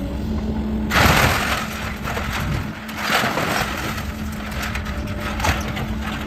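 A mobile home being torn apart: wood and panels cracking, splintering and crushing, with a loud crash about a second in and another about three seconds in. A heavy machine's engine runs steadily underneath.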